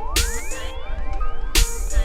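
Electronic dance music with a heavy bass, rising synth sweeps and sharp noise hits about every second and a half.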